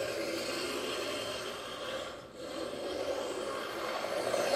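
An RC car's motor and drivetrain whirring as it drives across a wooden floor, heard up close from on board. The sound drops briefly about two seconds in, then builds again toward the end.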